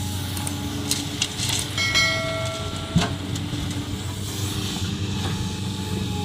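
Excavator's diesel engine running steadily, with several knocks and clanks about one to three seconds in and a short pitched whine about two seconds in.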